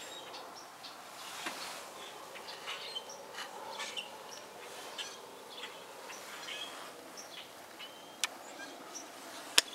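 Scattered short bird chirps over a faint background hiss, with two sharp clicks near the end.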